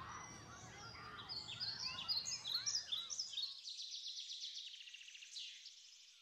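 Birds chirping and trilling in quick, repeated high phrases, over a low background murmur that cuts off about three and a half seconds in.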